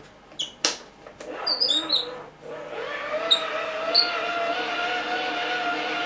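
A few plastic clicks as the radio's wind-up handle is handled, then the hand-cranked dynamo turning: a steady whine with a slight waver in pitch as the crank is wound.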